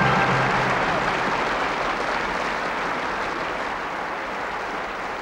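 Large stadium crowd applauding, the applause slowly dying down.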